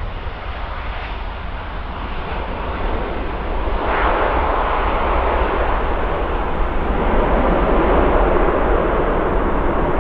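Airbus A350-900's twin Rolls-Royce Trent XWB turbofans at takeoff thrust as the airliner lifts off and climbs out: a steady jet roar over a low rumble. It grows louder about four seconds in and stays loud.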